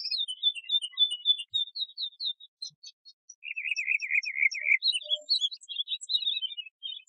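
Domestic canary singing a tutor song for training young canaries: quick runs of short high chirping notes, with a lower rapid trill a little past the middle.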